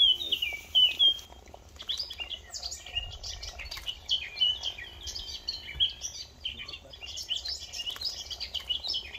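Small songbirds chirping and twittering, many short high calls overlapping almost without a break, easing off briefly about two seconds in.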